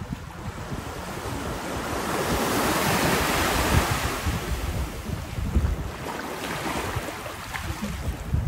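Small waves washing onto a sandy beach, one surge swelling and fading about midway, with wind buffeting the microphone.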